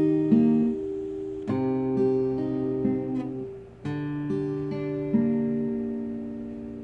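Epiphone dreadnought acoustic guitar played by hand: a slow melody of picked notes over ringing chords, with fresh chords struck three times, the last left to ring and slowly fade.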